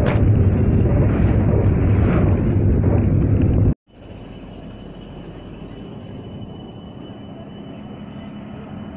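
Road and wind noise from inside a moving car: a loud, steady low rumble. It cuts off abruptly about four seconds in, giving way to a much quieter, steady outdoor background hiss with a faint high tone.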